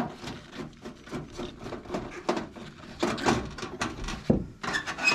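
Irregular clicks, scrapes and knocks of a screw being worked out of a range hood's metal light panel and the panel being handled, with a few sharper knocks near the end.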